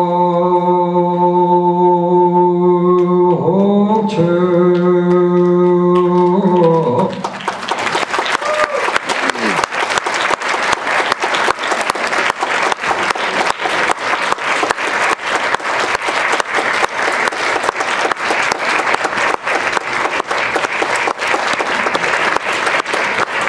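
A voice holds one long chanted note, shifting pitch slightly twice, and stops about seven seconds in; audience applause follows and continues steadily.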